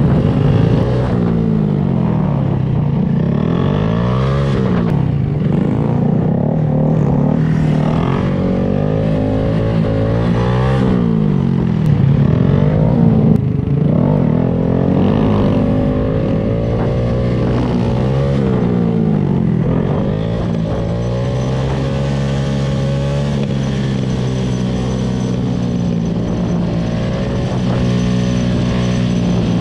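Motorcycle engines accelerating and shifting, their pitch climbing and dropping again and again, with two engine notes crossing each other at times. In the last third the engines settle to a fairly steady cruise.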